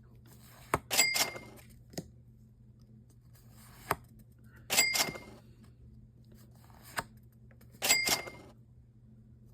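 Trading cards handled one at a time, four times about three seconds apart: each time a light tap, then a short papery swish with a brief high ring.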